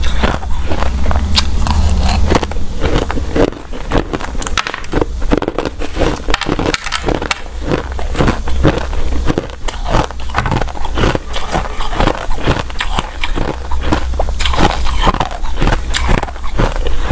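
Crushed ice being bitten and chewed, close to the mouth on a clip-on microphone: a dense, irregular run of crisp crunches and cracks.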